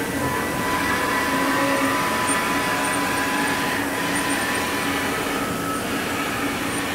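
A 1996 Haas VF3 vertical machining center's table being jogged along the X axis by its brushless servo and ball screw. It gives a steady mechanical hum with a thin, even whine that fades out about halfway through.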